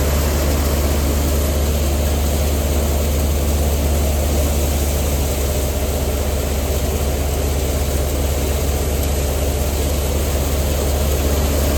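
Haller wheat thresher running steadily through a batch of wheat: a loud, unbroken machine drone with a deep steady hum.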